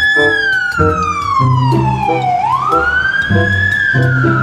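Ambulance siren wailing, its pitch sweeping up quickly and then sliding slowly down, twice, over background music with a steady beat.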